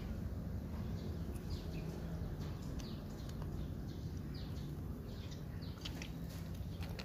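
A cat chewing on a fish, with small crisp crunching sounds, over a steady low hum, with brief bird chirps scattered through.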